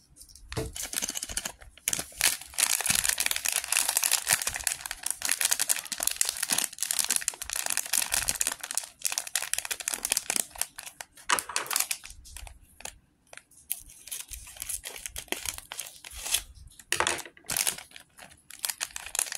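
A LEGO minifigure blind bag being torn open and crinkled while it is handled, in long rustling stretches with small clicks, with a shorter second spell of crinkling later and a few brief bursts near the end.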